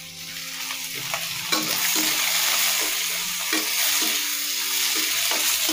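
Sliced onions, green chillies and bay leaves sizzling in hot oil in an iron kadhai during the tempering stage, the hiss getting louder about a second and a half in. A few short scrapes of a spoon stirring them through the oil.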